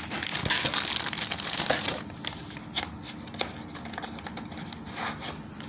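Clear plastic bag crinkling as hands open it and pull out accessories. It is loudest for the first two seconds, then turns to quieter rustling with scattered small clicks.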